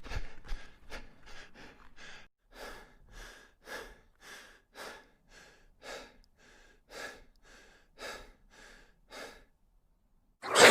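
Rapid, heavy human breathing as a sound effect: quick breaths in and out, about three a second, louder at first and fading away over several seconds until they stop shortly before the end.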